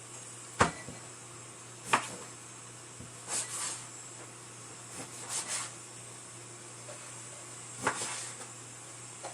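Several sharp knocks and clatters, a second or two apart, as objects are handled and set down, over a steady low hum.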